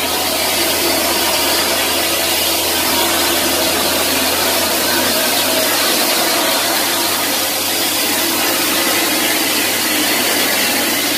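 Concrete mixer truck and concrete-plant machinery running: an even mechanical noise with a low hum underneath.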